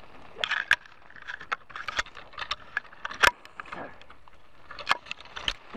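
Dry, twiggy scrub branches crackling and snapping as a hand and arm push into a dense bush, an irregular run of sharp cracks and rustles with the loudest snap about three seconds in.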